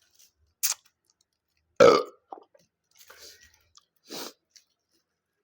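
Close-up eating noises: chewing and wet mouth sounds in short separate bits, with one loud throaty sound about two seconds in.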